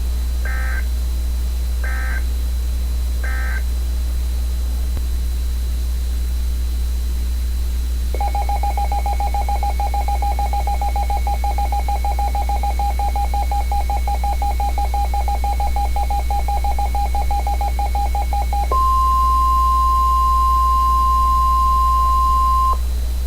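NOAA Weather Radio alert signals. First come three short data bursts, the end-of-message code closing the previous warning. Then comes about ten seconds of a steady, pulsing data tone, and about ten seconds in, the single steady 1050 Hz warning alarm tone sounds for about four seconds, announcing a new warning. A constant low hum from the receiver runs underneath.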